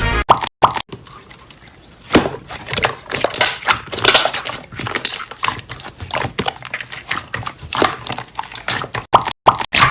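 Slime being squished and pressed by hand, making irregular wet clicks and pops.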